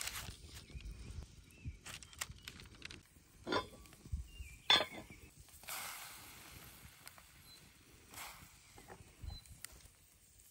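Food being handled in cast iron cookware over a campfire: light taps and parchment rustles, two sharper clinks of metal on cast iron about three and a half and five seconds in, the second the loudest, then a brief hiss around six seconds in.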